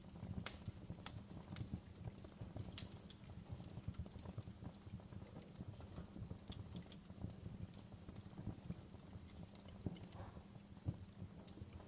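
Open fire crackling: a dense, quick low crackle with occasional sharp snaps.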